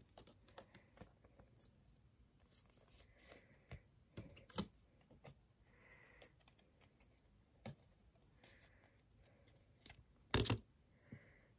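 Faint handling of trading cards and clear plastic card sleeves: scattered soft clicks and rustles, with one louder, sharper rustle a little after ten seconds in.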